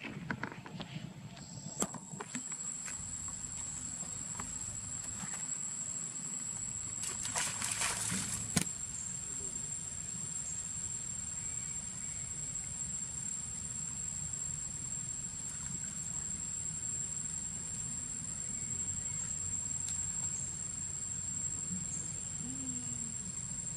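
A steady, high-pitched insect drone that starts about a second and a half in and holds on, over a low background hum. A few sharp clicks come in the first two seconds, and a brief rush of noise comes about seven seconds in.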